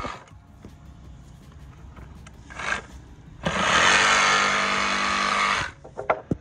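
Hilti jigsaw cutting into a pressure-treated lumber board, running steadily for a little over two seconds past the middle and then stopping sharply.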